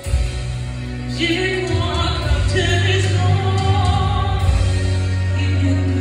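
A woman singing into a handheld microphone over instrumental accompaniment. A heavy bass line comes in at the start and her voice enters about a second later, holding long notes.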